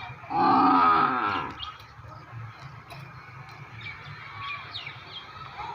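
A water buffalo calls once: a single loud moo lasting just over a second, starting shortly after the beginning. Faint bird chirps follow.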